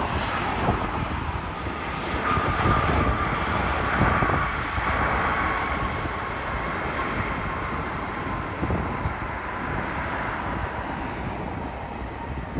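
Airbus A350-1000 jet airliner landing, its Rolls-Royce Trent XWB engines giving a steady rushing noise with a high whine that slides slightly lower in pitch.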